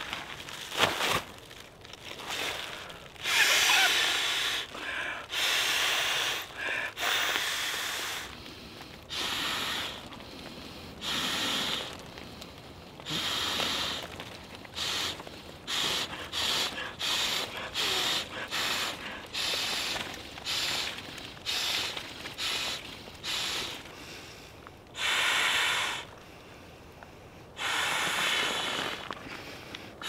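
Camp gear and tent fabric being handled while camp is pitched: repeated short bursts of rustling and swishing, some in quick runs, with a few longer ones.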